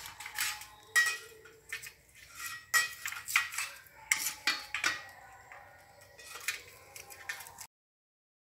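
Kitchen knife slicing okra pods on a stainless steel plate: irregular sharp taps and scrapes as the blade meets the steel, the plate ringing faintly after the louder strikes. The sound cuts off to dead silence near the end.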